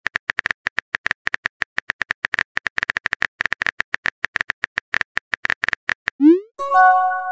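Texting-app sound effects: rapid keyboard-typing clicks, about nine a second. Near the end a short rising swoop and a chiming message tone mark a message being sent.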